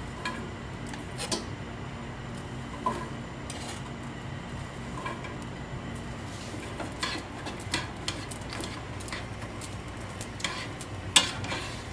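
Diced onion being scraped off a cutting board into a skillet of hot bacon fat: scattered clicks and taps of a knife against the board and pan, the loudest near the end, over a faint steady sizzle.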